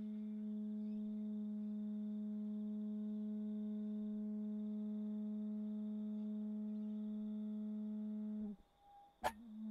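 Feedback tone from a piezo microphone and portable Bluetooth speaker coupled to a metal bowl, resonating the bowl: a steady hum with fainter overtones. Near the end the tone cuts out, a brief higher tone and a sharp click follow, and the hum comes back.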